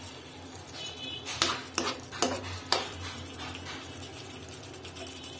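A steel spoon clinking and scraping against a frying pan while stirring fish curry, with four sharp clinks in quick succession about a second and a half to three seconds in.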